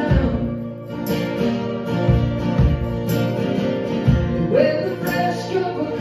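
Live band playing an instrumental passage of a country-rock song: strummed acoustic guitars and mandolin over a drum kit keeping a steady beat, with a sliding lead note about four and a half seconds in.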